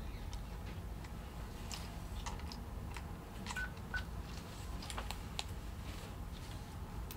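Handheld two-way radio keypad: scattered light button clicks, with two short high beeps about half a second apart around the middle, over a low steady hum.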